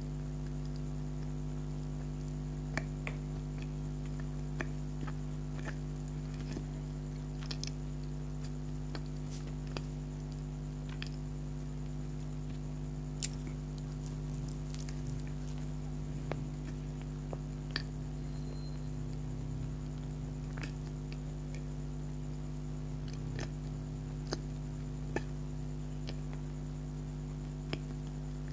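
Soft, scattered mouth clicks and squishes of someone chewing soft donut, over a steady electrical hum.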